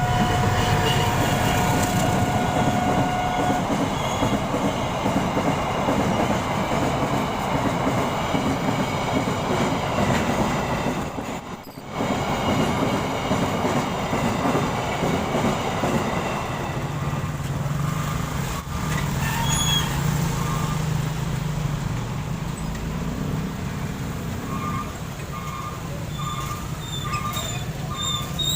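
Freight train of fuel tank wagons running through a level crossing, its wheels rumbling and clattering on the rails. A level-crossing siren's steady tone cuts off a few seconds in. Near the end the malfunctioning crossing alarm gives short repeated beeps, about two a second.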